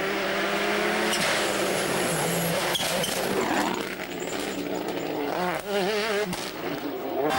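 A World Rally Car's turbocharged engine running hard on a rally stage, its pitch shifting as it accelerates and lifts, with a wavering tone about two-thirds of the way through.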